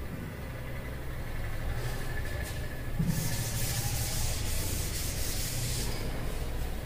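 Felt chalkboard duster rubbing across a blackboard, wiping off chalk writing; a dry scraping noise that gets stronger about three seconds in.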